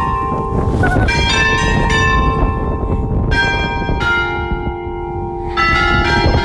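Church bells ringing loudly: several bells of different pitches struck one after another, each stroke ringing on and overlapping the next.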